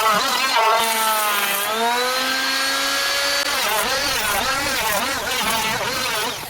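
Electric power tool motor running on wood, its pitch repeatedly dipping and recovering as it is loaded, with a smooth rise to a steady higher whine about two seconds in while it runs free.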